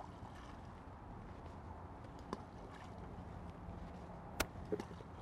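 Steady wind noise over choppy lake water, with two faint sharp clicks about two seconds in and again near four and a half seconds.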